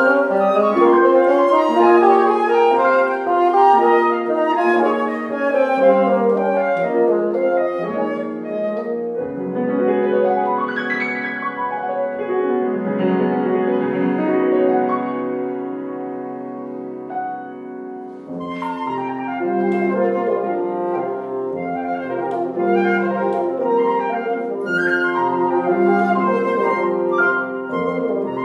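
Chamber trio of flute, bassoon and piano playing a contemporary classical piece. The playing thins out and quietens a little past halfway, then comes back fuller.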